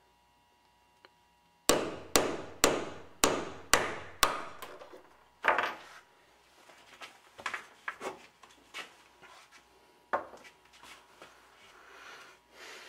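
A hammer driving the head of a tuning hammer against a lead weight set in a Zuckermann Z-Box harpsichord key, pounding the weight out. There are about seven sharp strikes, about two a second, starting near two seconds in, then one more knock and a few fainter knocks and clicks.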